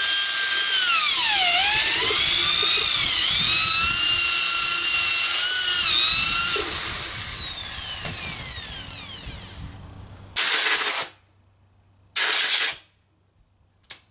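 Handheld electric drill spinning a stiff nylon abrasive (Nylox) brush against carbon deposits in an aluminum VW cylinder head's combustion chamber. The whine dips in pitch twice in the first few seconds as the brush is pressed in, then the drill is switched off and spins down over about three seconds. Two short hisses about two seconds apart and a click follow near the end.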